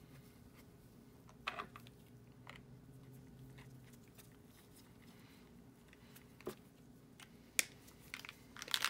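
Quiet handling sounds: a few small clicks and taps as gloved hands wipe and handle a paint marker. Right at the end, the steel bearing dropped into the marker as a mixing ball starts to rattle rapidly as the marker is shaken.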